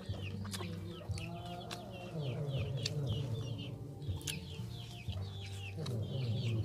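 Domestic chickens clucking, with a busy run of short, high, falling peeps several times a second. Sharp wet smacking clicks from eating come through here and there.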